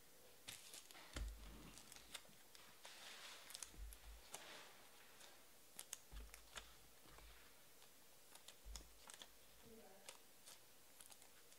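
Faint, irregular light clicks and short plastic rustles, with a few soft thumps: trading cards being handled and slid into plastic penny sleeves.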